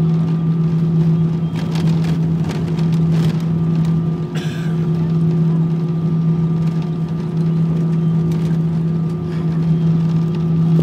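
Airbus A319 jet engines running steadily, heard inside the cabin as the airliner rolls along the runway after landing: a constant low hum with a higher steady tone over rushing noise. A few light rattles come in the first few seconds.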